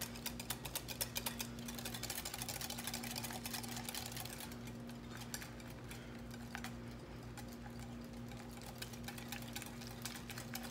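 Wire whisk beating egg yolk and peanut oil in a glass bowl: a fast, steady clicking of the wires against the glass as the mayonnaise is emulsified by hand, with oil being drizzled in.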